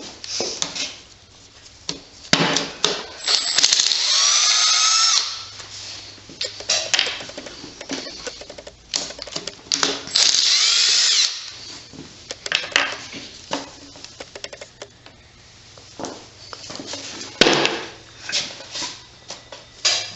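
A power drill runs in two bursts of a second or two each, about a third of the way in and again near the middle, its pitch shifting as it spins. Between the bursts come scattered clinks and knocks of tools and metal parts, as the side cover comes off a single-cylinder engine.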